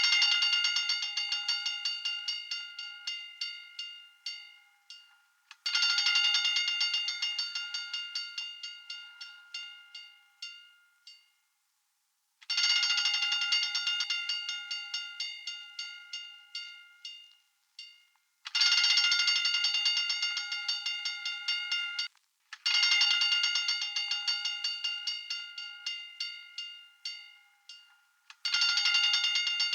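Fire alarm bell ringing in bursts of rapid hammer strikes, six in all. Each burst starts loud, then weakens and slows over a few seconds before a short gap and the next burst.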